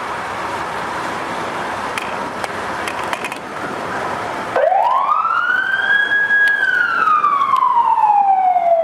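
Siren on a vintage International fire engine, starting about halfway through: it rises quickly in pitch, holds for a moment, then falls slowly. Before it there is only steady street and crowd noise.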